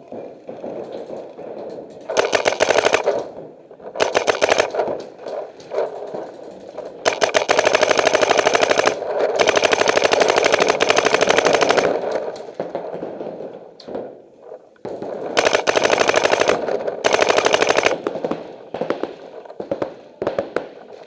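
Paintball marker firing rapid streams of shots in repeated bursts, the longest lasting about five seconds near the middle, with short breaks between bursts.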